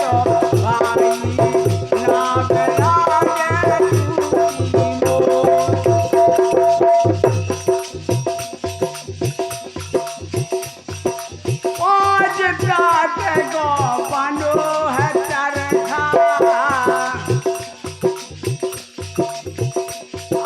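Instrumental interlude of Indian folk devotional music: a steady tambura drone over a regular drum beat and shaken rattle percussion. A wavering melody line comes in about twelve seconds in and fades out a few seconds later.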